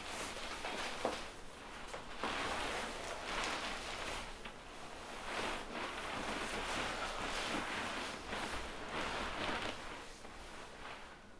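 Irregular rustling noise that swells and fades every second or two, with a few faint clicks, and grows quieter near the end.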